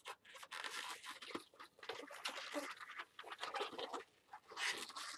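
Latex modelling balloons being twisted and handled, rubbing against each other and the hands in scratchy bursts, with a short lull about four seconds in.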